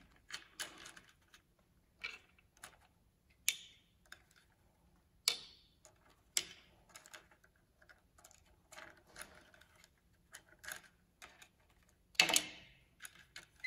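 Chopsticks clicking against a ceramic plate and acorns clinking as they are picked up and dropped onto another plate, in irregular taps with a louder clatter near the end.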